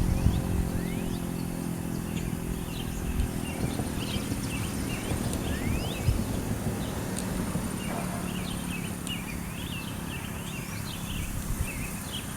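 Wind rumbling and buffeting on the microphone, with birds chirping and calling on and off, most busily near the end. A low steady hum fades out in the first few seconds.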